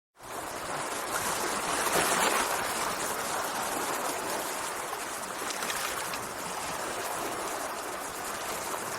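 Sea water washing in a steady rush that swells briefly about two seconds in.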